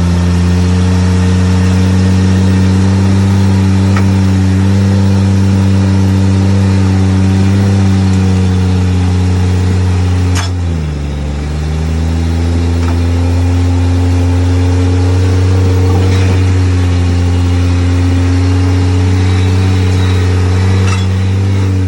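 Rock crawler engine running hard at steady revs under load as it climbs rock. About halfway through the revs sag briefly, then pick back up.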